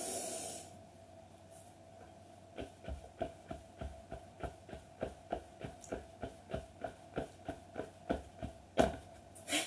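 A quick in-breath, then a steady run of about twenty soft thuds, roughly three a second, as a seated person bounces up and down on a yoga mat over a wooden floor while holding the breath in a Nejang exercise. It ends with a loud release of breath.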